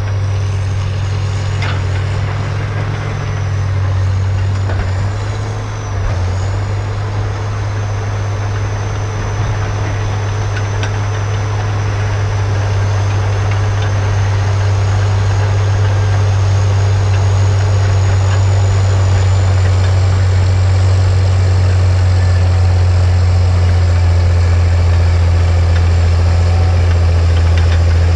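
A steady, loud machine hum with a thin high whine that wavers in pitch for the first few seconds and then holds steady. The hum grows a little louder about halfway through.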